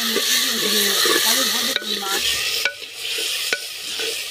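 Sliced onions sizzling in hot oil in a clay cooking pot as a ladle stirs them, just after they go into the tempering of mustard seeds, garlic and green chillies. A few sharp knocks of the ladle against the pot come in the second half, as the sizzle eases.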